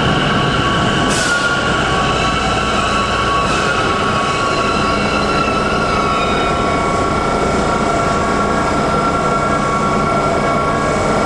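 Sotetsu 12000-series electric train pulling into an underground station and slowing to a stop, running noise under several steady high-pitched whining tones. One sharp click comes about a second in.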